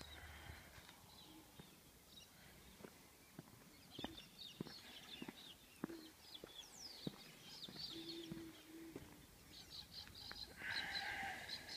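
Small birds chirping and whistling outdoors, with a run of footsteps on a dirt track about twice a second; a louder, harsher call stands out near the end.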